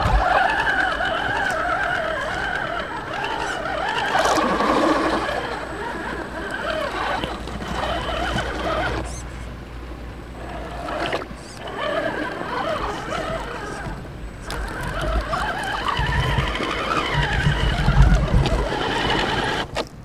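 Electric drivetrain of an RC rock crawler: its 55-turn brushed motor and gears whining, the pitch rising and falling with the throttle, with brief lets-up and low rumbles near the end.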